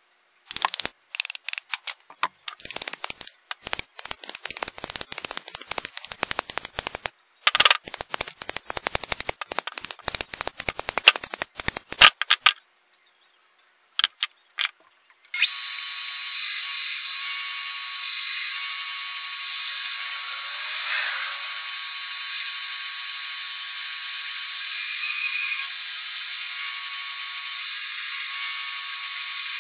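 Rapid, uneven strokes of a hand tool working wood clamped in a bench vise for about twelve seconds, then a pause with a couple of knocks. From about fifteen seconds in, a band saw runs steadily with a high whine.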